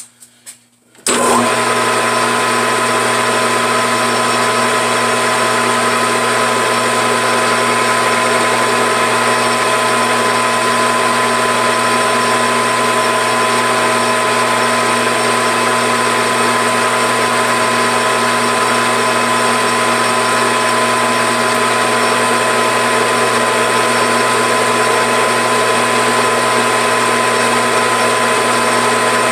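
Grizzly G4003G gunsmithing lathe starting up about a second in and then running steadily, a loud machine sound with a high, even gear whine, as it turns down the end of a steel rifle barrel.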